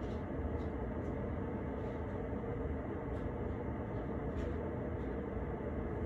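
Steady low background hum and noise, with a few faint, short high ticks scattered through it.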